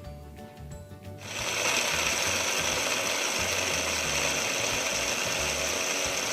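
Blender switching on about a second in and running steadily at full speed, blending ice, bananas, milk and peanut butter into a smoothie. Background music plays before it starts.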